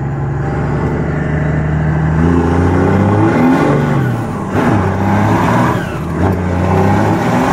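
First-generation Dodge Cummins 5.9-litre inline-six turbo diesel pulling hard under acceleration, heard from inside the cab. The engine note holds steady for about two seconds, then climbs in pitch, dropping back around the middle and again near six seconds in as it shifts up through the gears. It runs on a newly fitted AirDog fuel pump, which the owner says makes it run a lot better.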